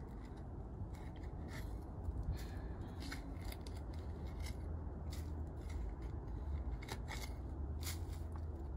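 Garden hand trowel digging and scraping in soil, short irregular scrapes and clicks every second or so, over a steady low hum.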